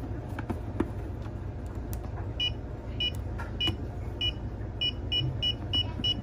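Handheld TackLife EMF meter's alarm beeping: short high beeps that start about two and a half seconds in and come faster and faster, about three a second by the end, as its field reading climbs with the phone plugged into its charger. A few light clicks come before the beeping.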